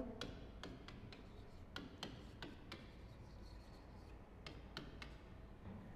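Chalk ticking and tapping on a chalkboard as words are written: a run of faint, irregular clicks, with a short lull about halfway through.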